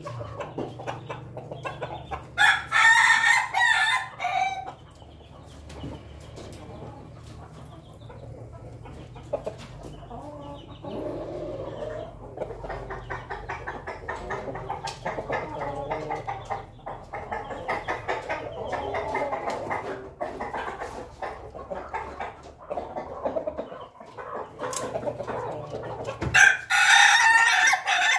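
Ayam ketawa (Indonesian laughing chicken) roosters crowing: a long crow broken into quick segments about two seconds in, and another starting near the end. Between the crows, softer clucking from the flock.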